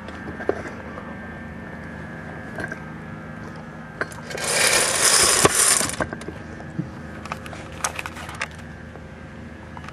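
Scattered clicks and knocks of a Magna Vender gumball machine being handled and its bottom plate refitted, with one loud rattling, scraping burst lasting under two seconds about four seconds in.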